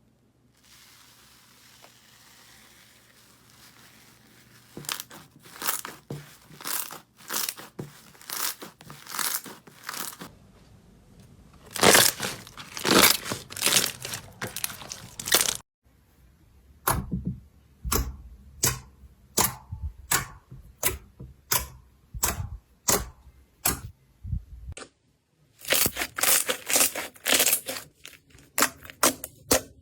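Slime being squished and poked, making crackly, crunchy strokes. The strokes come in an even rhythm of about two a second in one stretch and as dense crackling in others.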